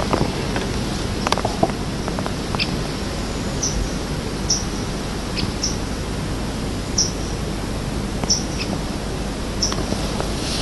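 A bird repeating a short high chirp about once a second over a steady background hiss, with a few clicks in the first two seconds.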